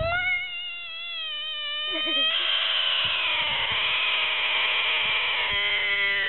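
Bullfrog held in the hand giving a distress scream. It is one long, loud, high wailing cry that rises quickly at the start and is held for the whole stretch. It turns harsher about two seconds in, and a lower tone joins it near the end.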